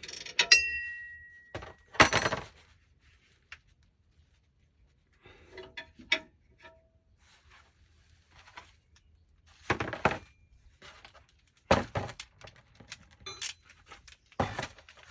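Metal tools and hardware clinking and knocking in separate strikes, the first of them leaving a short metallic ring.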